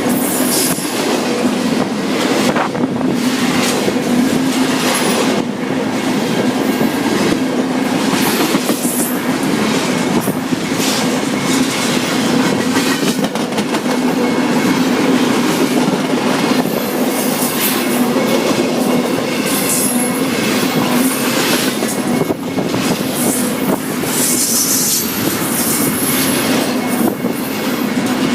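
Freight train cars rolling past at close range: steady wheel and rail noise with irregular clacks over the rail joints and a few brief bouts of wheel squeal.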